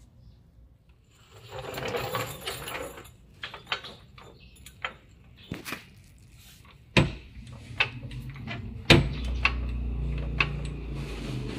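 Sharp metallic clicks and two loud knocks from a hydraulic floor jack being worked under a van's rear axle, with a steady low hum underneath from about nine seconds in.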